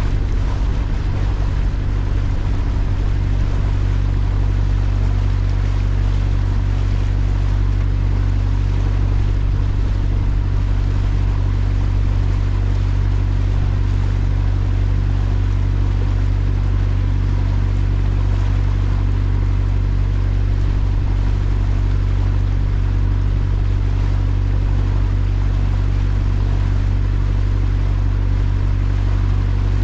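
Water-taxi boat's engine running steadily under way, a constant low drone with an even hiss of water and air above it.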